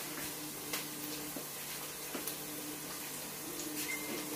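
Quiet kitchen: a steady low hiss from a pot heating on a lit gas burner, with a few faint clicks as a plastic seasoning bottle is handled and a faint hum that comes and goes.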